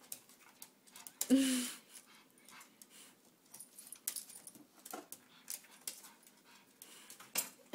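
Pug puppy gives one short bark about a second in, followed by faint scattered ticks of its claws on the hardwood floor as it hops on its hind legs.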